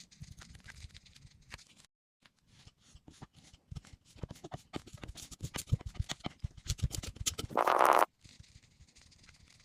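Kinetic sand being worked by hand: a run of soft crackles and squishes that grows denser and louder partway through, with a brief dropout about two seconds in. Near the end comes a louder rush of noise lasting about half a second.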